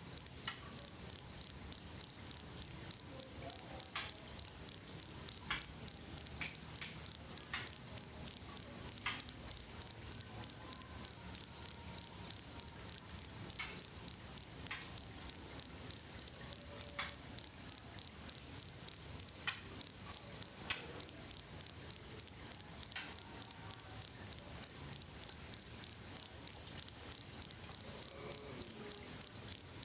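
Cricket chirping in a fast, even, high-pitched pulse of about three chirps a second.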